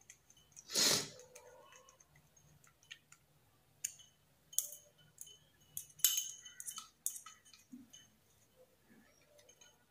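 Small clicks and taps of a screwdriver and wire ends against the terminal screws of a plastic bulb holder while its wires are fastened, the loudest about a second in and a cluster of them around six to seven seconds in.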